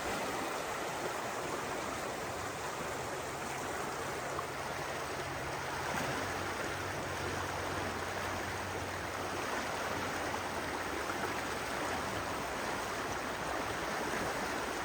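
A river running high after heavy rain, a steady rushing of water.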